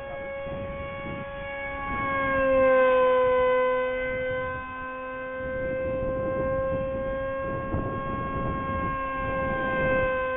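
Electric motor and propeller of an RC foam parkjet whining at a steady pitch in flight. The pitch dips slightly about two to three seconds in, where it is loudest as the plane passes.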